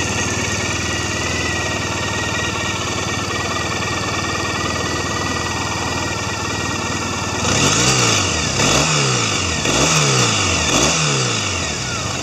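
Triumph Bonneville T100's air-cooled 865 cc parallel-twin engine idling steadily in neutral, then revved four times in quick succession, each blip rising and falling back to idle about a second apart.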